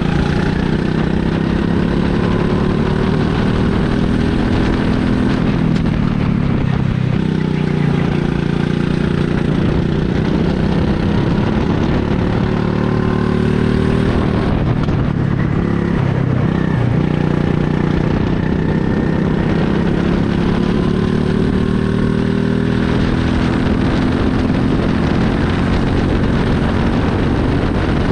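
Rental go-kart's small engine running hard on a lap, heard onboard: its note climbs steadily for several seconds on the straights and drops as it slows for the corners, about three times over.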